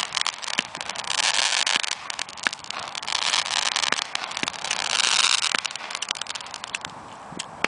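Fireworks hissing and crackling with many sharp pops, coming in several surges of a second or so.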